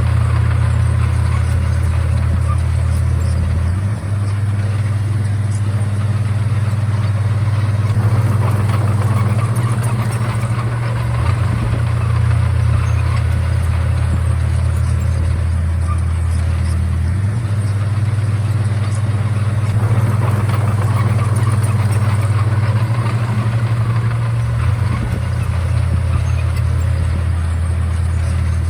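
Komatsu D31A bulldozer's diesel engine running steadily, its low note shifting down and back up several times.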